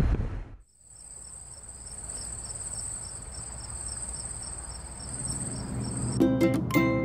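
A high, steady insect trill with a faint even pulse, like crickets chirping, over a low hum. Music with a beat starts near the end.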